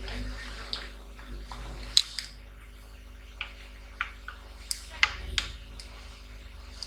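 Scattered sharp small clicks and taps, about nine of them, the loudest about two and five seconds in, over a steady electrical hum.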